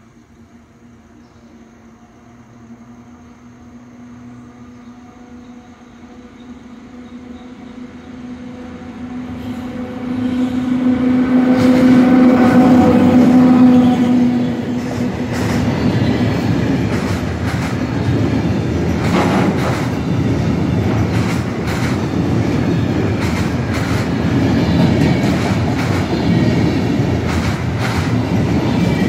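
ET22 six-axle electric freight locomotive approaching, its steady pitched hum growing louder until it passes about twelve to fourteen seconds in. Its long train of loaded container flat wagons then rolls by with a heavy rumble and repeated clacks of wheels over rail joints.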